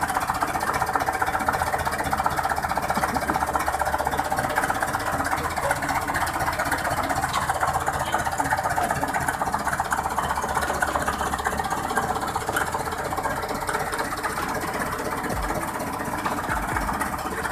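Massey Ferguson 385 tractor's four-cylinder diesel engine running steadily at idle, freshly filled with new engine oil and a new oil filter.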